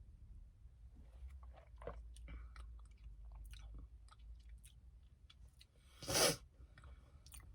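Close-up mouth sounds of someone sipping a matcha milk drink with tapioca pearls and chewing the pearls: soft wet clicks and smacks, with one short louder rush of noise about six seconds in.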